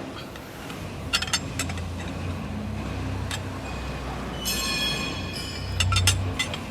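Heavy metalwork on a press brake: a steady low machine rumble with sharp metal clanks, and a high metallic squeal lasting about a second midway.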